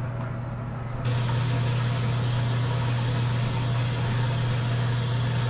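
Steady low mechanical hum, with a hiss that comes in suddenly about a second in and then holds.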